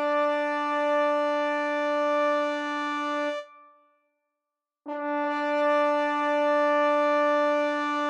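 Buzzy synthesizer tone from the GarageBand keyboard, two keys held together, imitating a fluorescent or HID ballast buzz. It sounds for about three and a half seconds, stops, and comes back about five seconds in, held steady.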